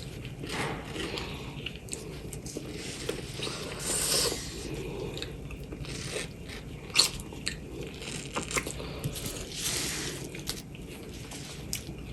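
Close-miked mouth sounds of eating seasoned mango: biting and wet chewing with frequent small clicks, the sharpest about seven seconds in.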